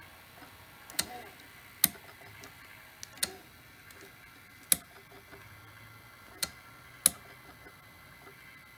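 Panasonic NV-870 VCR stepping frame by frame while paused: seven sharp clicks at uneven intervals, one for each press of the frame-advance button.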